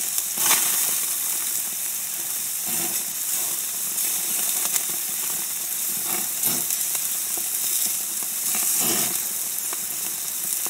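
Food frying in a hot pan, a steady sizzle with a few brief louder moments.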